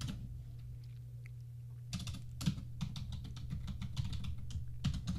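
Typing on a computer keyboard: a run of quick key clicks that starts about two seconds in.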